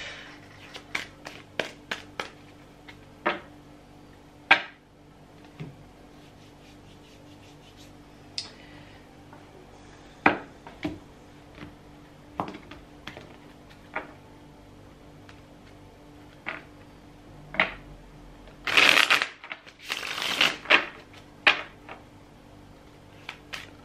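A deck of tarot cards being shuffled by hand: scattered sharp snaps and taps of cards, with two longer rustling runs of shuffling a little past two-thirds of the way through.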